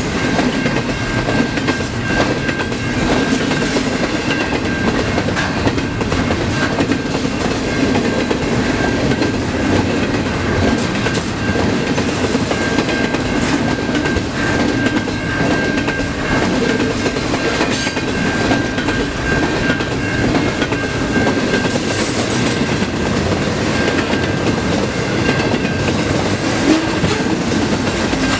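Freight train of double-stack container cars rolling steadily past at speed, wheels rumbling and clacking over the rails, with a thin high steady tone through most of it.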